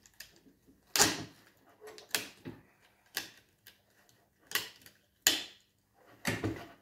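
Handling clicks and knocks from an xSPINE vest's shoulder straps and buckles being worked by hand: a series of sharp, irregularly spaced clicks with short pauses between.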